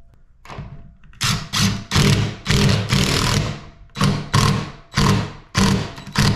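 DeWalt cordless drill/driver with a socket, driving a 1/4-inch lag screw through a steel wall-mount plate into a stud. It runs in about nine short trigger bursts starting about a second in, with a longer run in the middle as the screw goes in.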